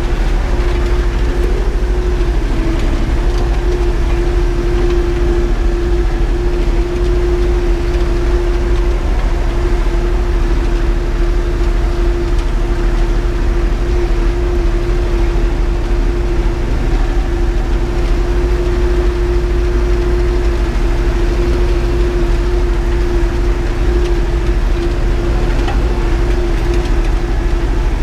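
Erkunt tractor's diesel engine running steadily under load, heard from inside the cab, while it pulls a harrow across a field. A steady whine runs over the drone.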